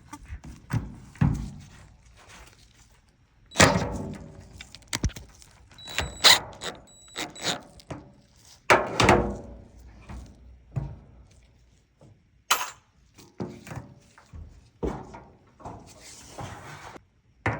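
Irregular knocks, clunks and clatter of a dryer's metal panels and parts being handled during reassembly, a few sharp with a brief metallic ring.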